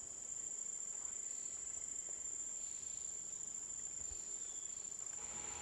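An insect calling with one steady, unbroken high-pitched tone, over a faint background hiss of forest ambience.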